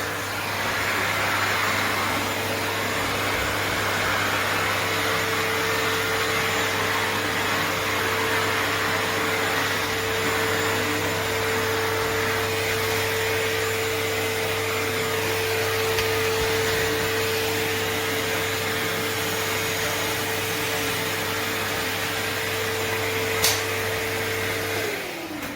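Rowenta Compact Power bagged canister vacuum cleaner running steadily, with a constant motor whine over its airflow noise. Near the end it is switched off and the motor winds down, falling in pitch, just after a single click.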